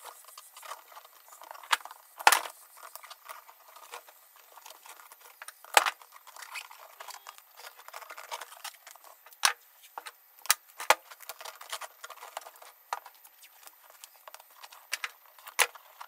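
Duct tape being pulled off the roll and pressed around a tin can and steel pipe, a crackly rustle broken by sharp clicks and knocks, the loudest about two seconds in and again near six seconds.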